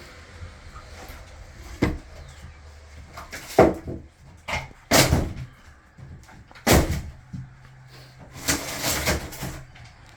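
Cabinet doors and drawers being opened, shut and knocked about: about five separate knocks and bangs, the sharpest about a third and two thirds of the way in.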